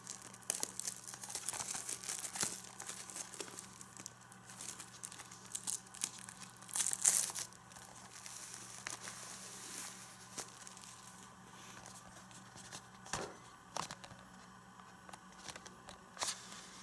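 Clear plastic shrink wrap being torn open and peeled off a Blu-ray case by hand, crinkling and crackling in irregular bursts, with the loudest crinkles about seven seconds in.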